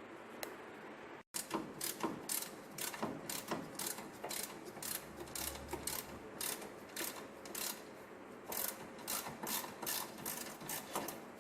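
Hand ratchet wrench clicking in repeated short strokes, about two a second, as a fastener is worked on a car.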